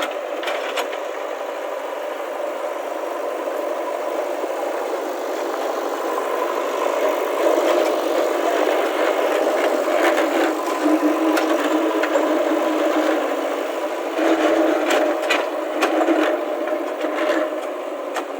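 JCB backhoe loader's diesel engine working under load, growing louder about a third of the way in, with scattered clanks and rattles from the machine.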